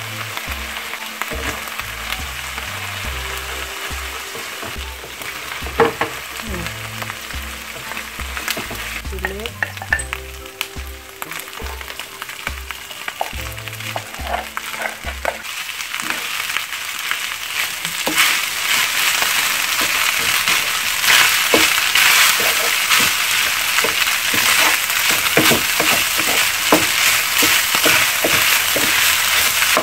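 Nasi goreng frying in hot oil in a frying pan: prawns sizzle, then cooked rice goes in and is stir-fried with a wooden spatula. The sizzle grows much louder a little past the middle, with frequent spatula scrapes and taps against the pan.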